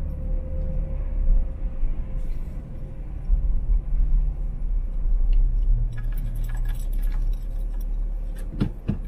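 Car driving, heard from inside: a steady low road and engine rumble with a faint steady hum. From about six seconds in come light clicks and rattles, and two short knocks near the end.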